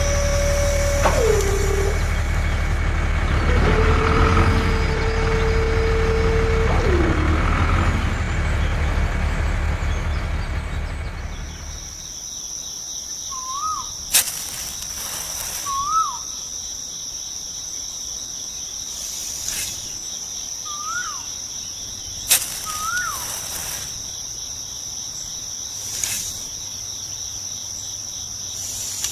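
A small motor runs with a steady hum, its pitch dropping twice, and stops about halfway through. Then a steady high cricket trill continues, with a few short bird chirps and occasional sharp clicks.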